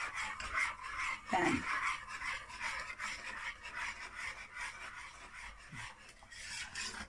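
Wire whisk stirring thickening pastry cream in a pot, scraping with a fast, even rhythm.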